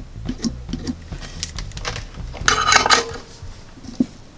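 Metallic clicks and clinking as the helping-hands alligator clip and the soldered metal piece it holds are handled, with a dense, briefly ringing rattle about two and a half seconds in.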